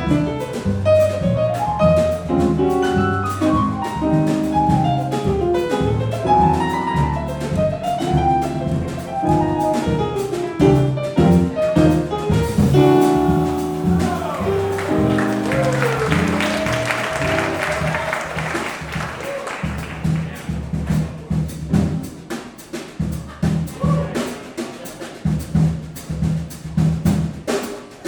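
Live jazz combo playing a tune with drums, bass and melody instruments.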